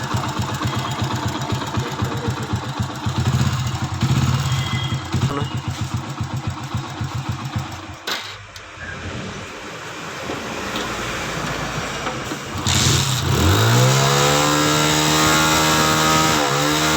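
A Hero Passion Pro's single-cylinder four-stroke engine running after a timing chain kit replacement: it runs with a rapid even beat, drops off briefly about halfway through, then is revved up at about 13 seconds and held at a steady high speed.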